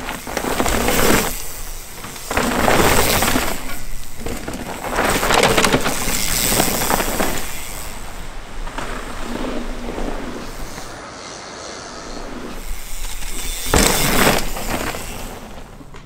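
Knolly Delirium mountain bike's tyres rolling and skidding over loose forest dirt, in about five separate surges of crunching trail noise.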